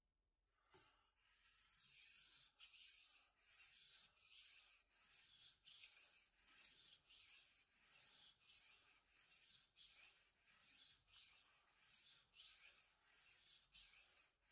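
A Japanese deba knife's steel blade scraping back and forth on a wet whetstone in a steady run of sharpening strokes, about one and a half a second, starting about a second in. The sound is a faint, hissy rasp.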